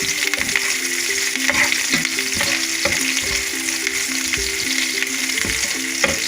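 Garlic and green chillies sizzling in a little hot oil in a pan, with a spatula stirring and knocking against the pan now and then.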